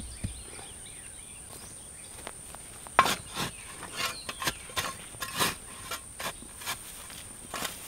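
Spade blade chopping and scraping into soil and ash in short repeated strokes, roughly two a second, starting about three seconds in, the first the loudest. A steady high insect drone runs underneath.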